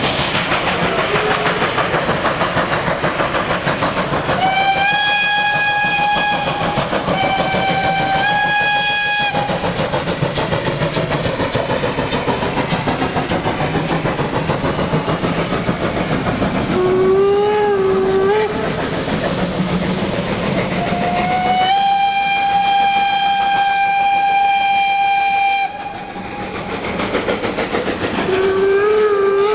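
Steam locomotive running past with a steady rush of running noise. A steam whistle sounds two blasts about five and eight seconds in and one long blast about two-thirds of the way through. A lower, wavering whistle sounds twice.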